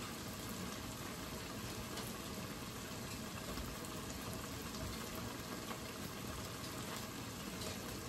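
Tomato-based stew simmering gently in a pot on a low stove setting: a steady, faint bubbling hiss.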